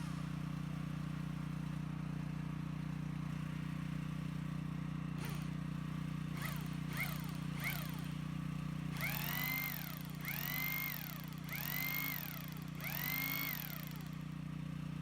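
Bosch GBH 2-20S hammer drill motor spun up in short trigger pulses: a few brief blips, then four longer runs of about a second each, the pitch rising and falling back every time. A steady low hum runs underneath.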